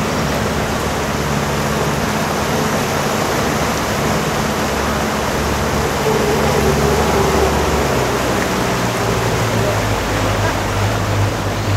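Outboard motor of a river tour boat running steadily under way, its hum mixed with the rush of water churned up in the wake. The engine's note drops a little about eight seconds in.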